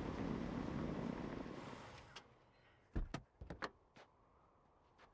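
Cadillac sedan's engine running as the car pulls up, shut off about two seconds in. It is followed by a quick run of sharp clicks and knocks between three and four seconds in as the car doors are unlatched and opened.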